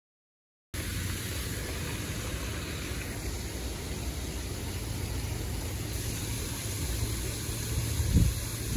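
Steady rushing outdoor noise, starting suddenly about a second in, of water from a small rock waterfall mixed with a low wind rumble on the microphone; a louder bump near the end.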